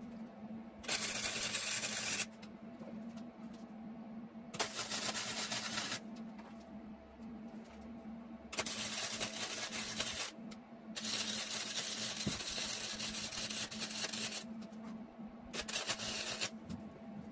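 Arc welding tubing onto a scooter frame: five separate spells of loud, sizzling crackle, each one to three seconds long, as a series of short welds is laid down, with a steady low hum running under them.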